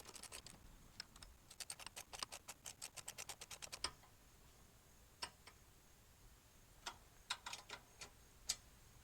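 Faint clicking of a ratchet wrench: a quick run of about six clicks a second, then a few scattered clicks, as the 7/16 bolts holding a louvered baffle inside a slip-on muffler are driven in.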